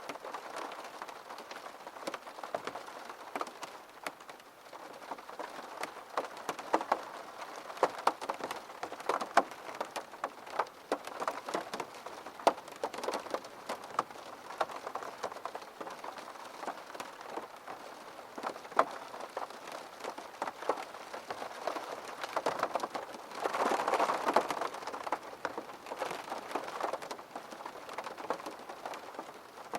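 Steady rain falling, with many distinct drops pattering and splashing on a surface; a heavier, denser spell of rain comes about three-quarters of the way through.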